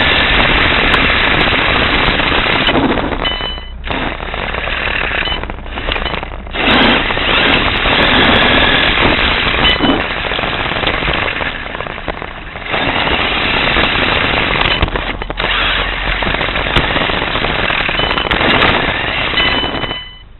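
Radio-controlled buggy driving over rough pavement, heard from a camera mounted on its chassis: a loud, continuous rattling clatter of tyres, suspension and chassis. It eases off briefly a few times as the car slows and stops abruptly near the end as the car halts.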